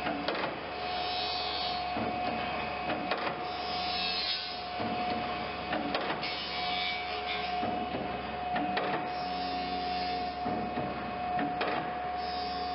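Band saw double side grinding machine running: a steady whine, repeated sharp clicks as the feed steps the blade tooth to tooth, and short bursts of high hiss as the grinding wheels dress the sides of the stellite-tipped teeth.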